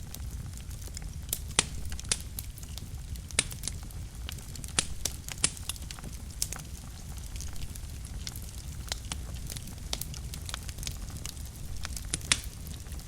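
Wood fire burning in a fireplace: a steady low rumble of the flames with sharp, irregular crackles and pops from the burning logs, the loudest pop near the end.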